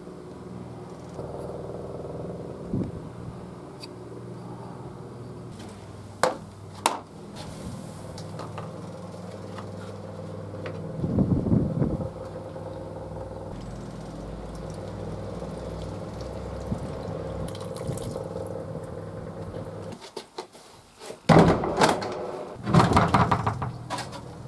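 Workshop power tools running with a steady motor hum: a drill press boring through a steel cleaver tang, then a belt grinder sanding a wooden handle block with its pins set in. A few sharp knocks come along the way. The hum stops near the end and is followed by louder, irregular handling noises.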